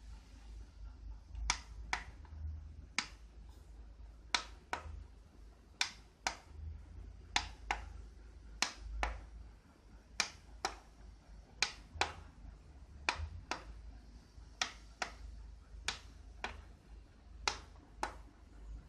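Buttons on an LED wristband remote controller being pressed, giving sharp single clicks at an uneven pace of about one a second as colours and flashing modes are switched.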